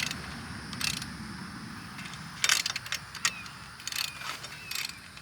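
Irregular sharp metallic clicks and clinks, about a dozen, from a hand tool tightening the bolts on a wheel hoe.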